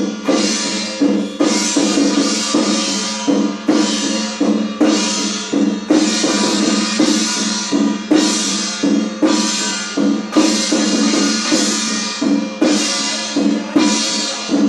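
Chinese temple ritual percussion, a drum and clashing cymbals struck in a steady beat over a steady ringing tone, playing to accompany a spirit medium's monkey god trance.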